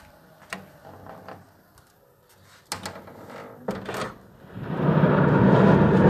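A few sharp knocks, then about four and a half seconds in a loud rumble of thunder sets in and keeps going.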